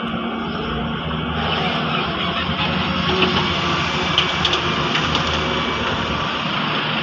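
Doosan DX140 excavator's diesel engine running steadily under hydraulic load while loading a tractor trolley. It grows louder about a second in, with a few sharp knocks a little past the middle.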